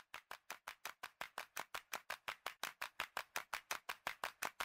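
A fast, even series of short, sharp percussive taps, about five a second, growing steadily louder: a percussion build-up in a hip-hop track's intro.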